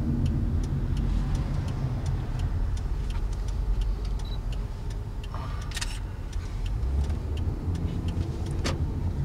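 Road and engine rumble of a car driving, heard from inside the cabin, with a scatter of faint ticks and two sharper clicks about six and nine seconds in.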